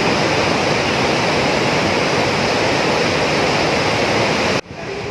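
Loud, steady rushing of water at a dam. It cuts off abruptly near the end, leaving a quieter rush.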